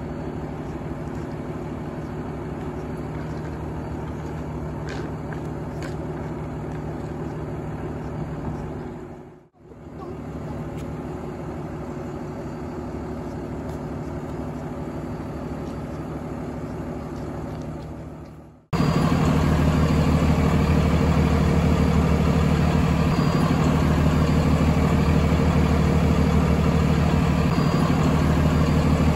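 Boom truck's engine idling steadily. It dips out briefly about a third of the way in, and about two-thirds in it suddenly becomes much louder and closer.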